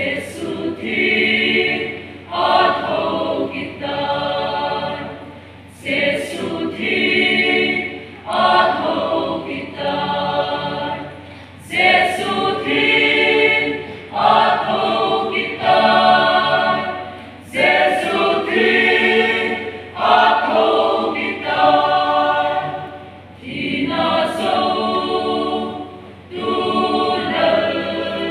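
Mixed church choir of women and men singing unaccompanied, in phrases that swell and fade every two seconds or so.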